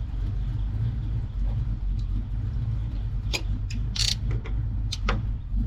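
1988 Ford Mustang GT's V8 running with a steady low rumble, with a few short sharp clicks or rattles about midway and near the end.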